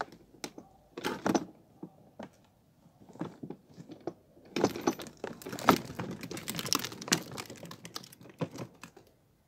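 The plastic wheel of a child's pedal tractor rolling over a rubbery squishy frog toy on gritty concrete, with grit crackling and crunching under the tyre. It comes in a short burst about a second in, then a longer run from about four and a half to eight seconds.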